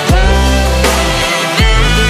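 Electronic background music with synth tones and deep bass hits that slide down in pitch, about one and a half seconds apart.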